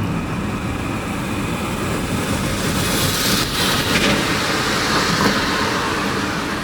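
Van driving along, heard from inside the cab: a steady low engine and road rumble, with a louder rush of tyre and wind noise swelling in the middle.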